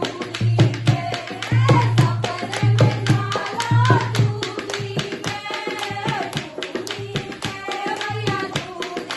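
Devotional bhajan music: a dholak drum plays a fast, steady beat with deep strokes about once a second, under a pitched melody line.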